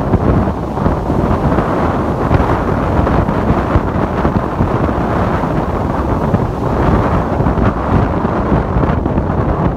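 Ocean surf and wind: a steady, loud rush of waves with heavy wind buffeting on the microphone.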